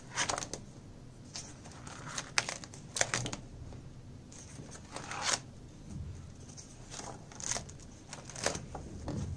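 Paper pages of a spiral-bound book being turned one after another, a rustling swish about once a second.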